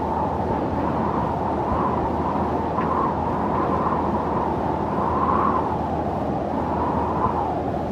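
Desert ambience sound effect: a steady, low rushing wind-like noise that swells and eases gently every second or two.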